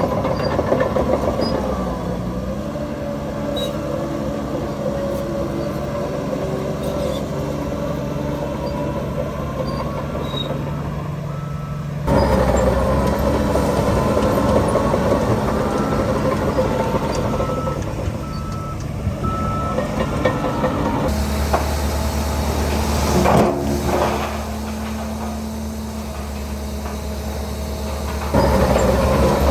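Heavy diesel engines of a bulldozer and dump truck running steadily, the sound changing abruptly between shots. Partway through, a reversing alarm beeps about once a second, and about three-quarters of the way in there is a short hiss of air brakes.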